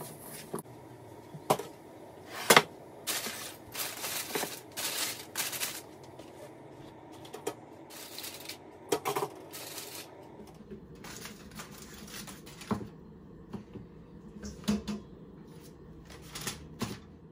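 Irregular kitchen handling sounds: sharp clicks, light knocks and short rustling swishes, busiest in the first ten seconds and sparser after, as seasoned chicken wingettes are worked in a coating and moved about.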